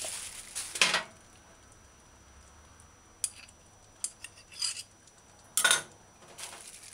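Several short clinks and clatters of a metal utensil against a glass jar, with the loudest about a second in and another sharp clatter in the second half.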